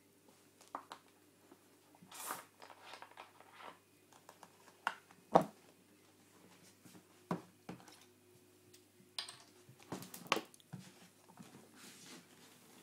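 Irregular crunches, clicks and knocks from a Maine Coon kitten busy at its bowl, the sharpest knock about five seconds in, over a faint steady hum.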